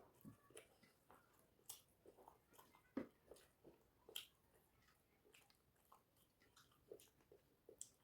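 Faint mouth sounds of a person eating rice and fish curry: irregular wet chewing and lip smacks, with one sharper smack about three seconds in.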